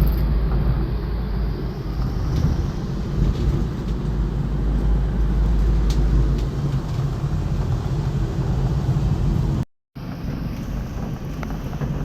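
Steady low rumble of a car driving on the road, briefly cut by a gap of silence near the end.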